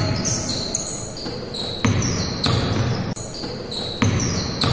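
A basketball bouncing on a hardwood gym floor: a few separate, unevenly spaced bounces that echo in the hall.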